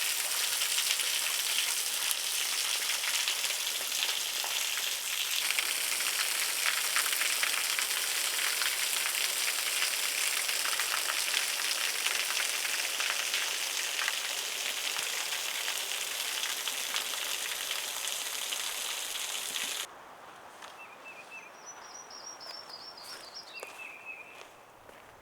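Water splashing and trickling in a steady hiss, as from a small waterfall or stream close by. It cuts off abruptly about twenty seconds in, leaving quieter woods where a bird gives short series of rapid chirps.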